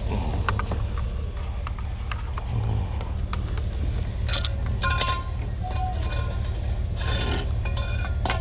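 Steady low rumble of a running vehicle, with a few ringing metallic clinks and rattles, first about four seconds in and again near the end.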